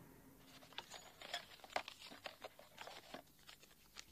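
Faint, irregular scratching of a dip pen's nib across paper, in short strokes starting about a second in.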